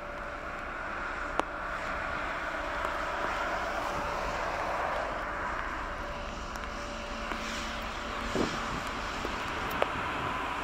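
Distant jet airliner engines at takeoff power, a steady rushing noise with a faint held tone underneath, broken by a few sharp clicks.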